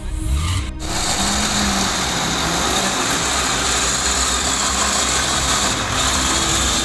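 Off-road vehicle engine running steadily. It starts abruptly less than a second in.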